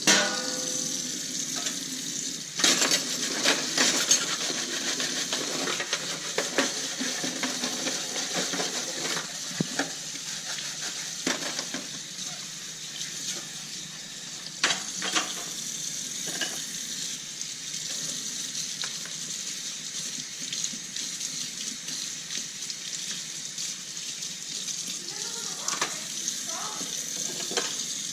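Dishes being washed by hand in a sink: a steady hiss of running water with scattered clinks of plates and cutlery knocking together, a cluster of them a few seconds in and a couple more about halfway.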